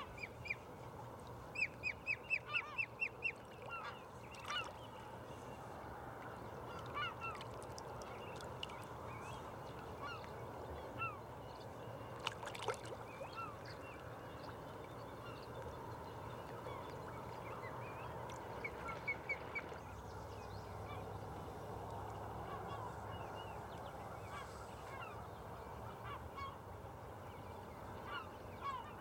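Birds calling: a quick run of about eight sharp calls in the first few seconds, then scattered short calls and chirps, over a steady background hiss.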